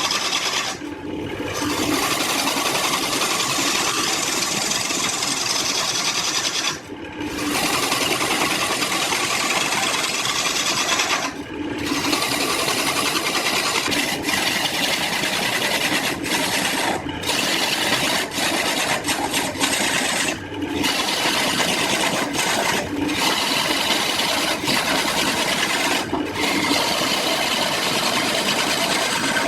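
A tool abrading wood: a steady rough rasping noise, broken by about six brief pauses.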